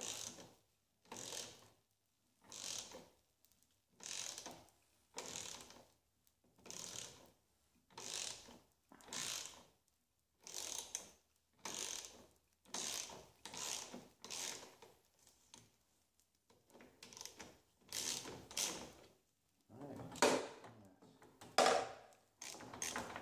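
Hand socket ratchet clicking in repeated strokes, about one every second and a half, as it turns a bolt at a Jeep YJ's windshield hinge; the last few strokes are louder.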